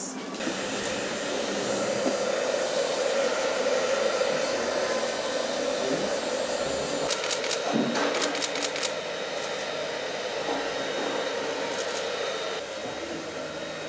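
Handheld hair dryer running steadily, blow-drying a long-haired cat's fur. There are a few short clicks about halfway through, and the dryer gets quieter near the end.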